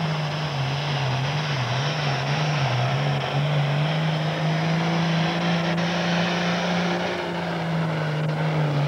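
Case 2290 tractor's turbocharged diesel engine under full load pulling a sled. Its pitch drops sharply as the load comes on, wavers, then holds steady, and sags near the end as the engine lugs down below its turbocharger's boost.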